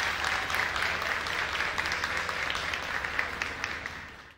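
Audience applauding: many hands clapping at once, fading out near the end.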